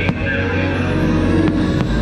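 Fireworks show music playing loudly, with aerial firework shells bursting over it: one sharp bang right at the start and two fainter pops near the end.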